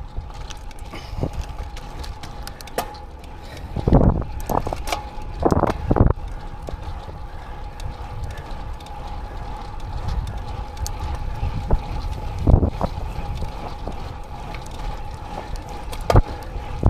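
Road bike riding at speed: steady wind on the microphone and tyre noise, with a thin steady whine. Several heavy low thumps are heard, the loudest about 4, 6, 12 and 16 seconds in.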